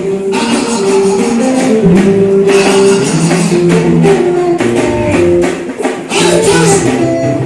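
Gospel worship music with a tambourine shaking and guitar, playing a held melody over chords.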